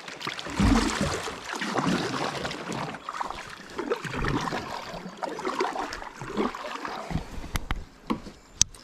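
Water splashing and trickling around a kayak, with a couple of dull knocks against the hull and a sharp click near the end.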